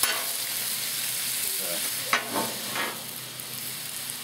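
Sliced chicken sizzling steadily on a Blackstone flat-top griddle. A metal spatula scrapes and knocks against the steel plate a few times, sharply about two seconds in.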